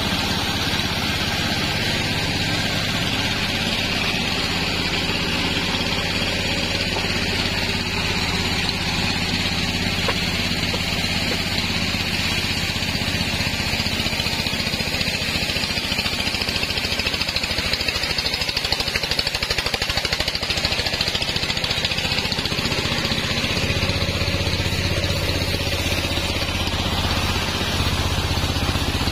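Stationary engine that drives a bandsaw mill, running steadily with a low hum.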